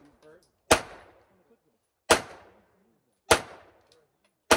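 Semi-automatic pistol firing four single shots about a second and a quarter apart, each a sharp crack with a short echo trailing off.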